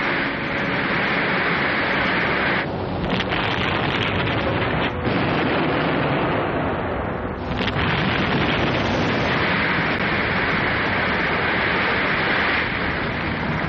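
Sci-fi television explosion sound effect: a loud, continuous blast of noise as a structure blows up. It eases briefly about three, five and seven and a half seconds in, as one blast gives way to the next.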